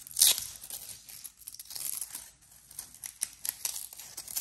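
A small rolled fabric mounting strap being unrolled and handled in the fingers: a short rasping rip just after the start, then light rustling and small clicks.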